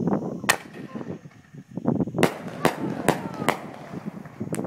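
Aerial fireworks shells bursting: a sharp bang about half a second in, then a quick run of four bangs from about two seconds in, and another just before the end.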